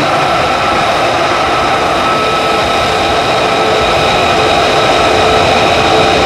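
F-35A Lightning II's Pratt & Whitney F135 turbofan running at low power on the ground: a steady jet rush with high, even whining tones over it.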